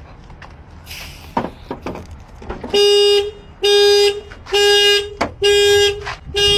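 Car alarm sounding the car's horn in regular pulses, a little over one a second, starting about two and a half seconds in; a few clicks and knocks come before it. The alarm is set off by opening the locked car without its key.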